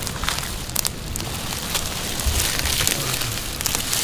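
Wood campfire crackling and hissing with scattered sharp pops as food roasts over it.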